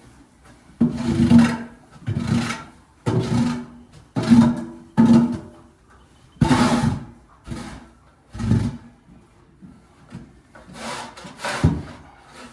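A tool scraping in rough strokes, about ten in all at roughly one a second, as a horse stall is mucked out.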